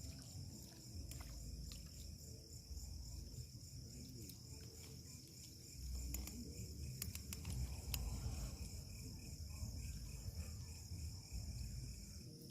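Steady high-pitched chorus of crickets and other insects, over a low rumble of wind on the microphone, with a few sharp clicks about seven to eight seconds in.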